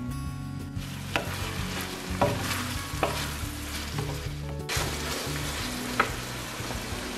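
Ground beef, onions and peppers sizzling in a wide saç tava while a wooden spoon stirs them. The spoon knocks against the pan a few times, the 'tantun' clatter said to give tantuni its name.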